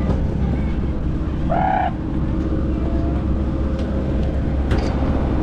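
Small passenger plane's engines running steadily: a continuous low rumble with a steady whine over it.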